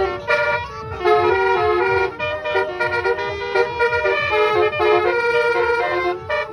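Bus basuri 'telolet' musical horn playing a melody of held tones that step from note to note, over a fast low beat.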